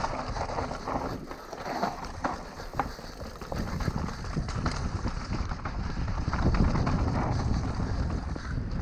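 Mountain bike riding fast down a dirt forest trail: wind rumbling on the microphone, tyres running over dirt and leaves, and scattered clicks and knocks as the bike rattles over bumps.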